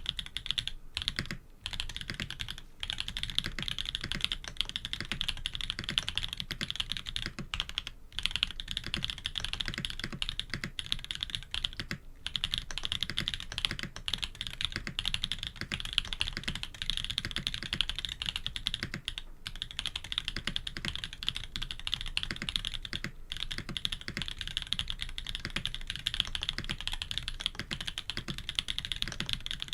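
Fast continuous typing on a K80 custom mechanical keyboard with Jade Black switches, an FR4 plate and PBT keycaps, a dense stream of key clicks with a few brief pauses.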